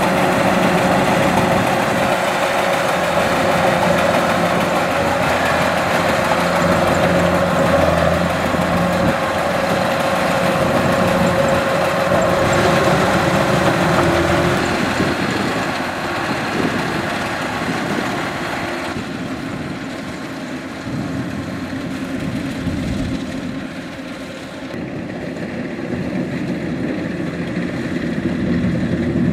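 Kubota DC-105X rice combine harvester running steadily, with its engine and threshing machinery humming at an even pace. It turns a little quieter for several seconds past the middle, then louder again.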